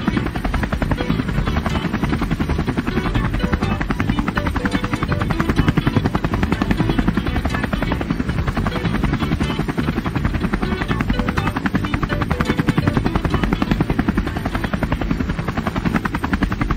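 Light helicopter coming in to land and touching down on the helipad, its main rotor beating in a rapid, even chop that stays loud and steady.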